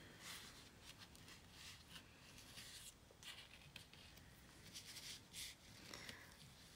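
Near silence with a scattering of faint, short rustles and ticks from fingers tying thin twine into a small bow on a cardstock piece.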